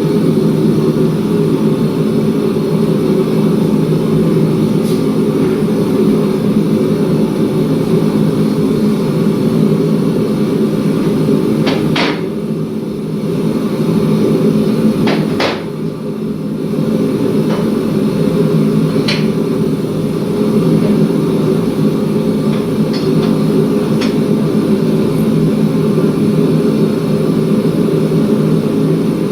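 Steady low mechanical drone from running shop machinery, with a handful of sharp metallic knocks; the two loudest come about twelve and fifteen seconds in.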